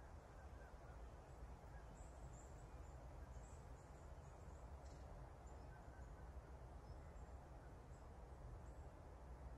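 Near silence: a faint steady low rumble and hiss, with a few faint, short high chirps between about two and six seconds in.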